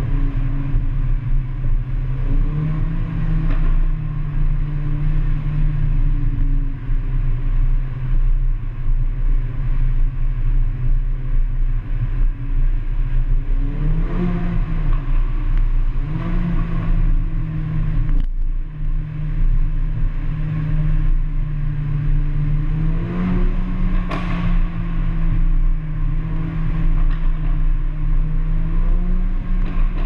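Mercedes-AMG A45's turbocharged four-cylinder engine droning under heavy wind noise on a fast mountain drive, its pitch stepping up and dipping a few times with acceleration and gear changes. Rattling from the rough road surface, with two sharp knocks about 18 and 24 seconds in.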